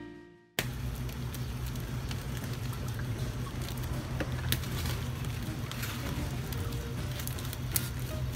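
Steady low hum and hiss of background noise with scattered small clicks and taps, starting abruptly about half a second in.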